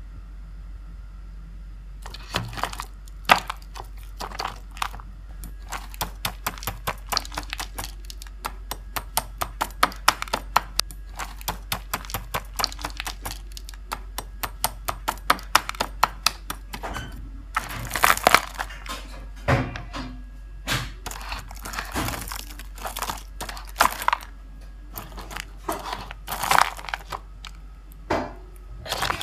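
Crisp crunching of deep-fried breaded food being eaten close to the microphone. A quiet start gives way, about two seconds in, to rapid crackling crunches, with louder bursts in the second half.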